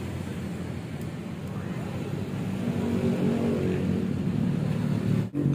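An engine running steadily, getting louder about halfway through, and cutting out for a moment near the end.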